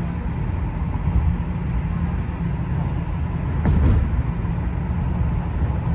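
Road noise inside a moving car's cabin: a steady low rumble of engine and tyres, briefly louder about four seconds in.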